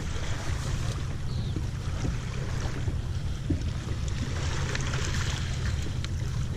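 Wind rumbling on the microphone, with a few faint clicks and rustles as a mooring line is worked around the bow cleat of a small boat.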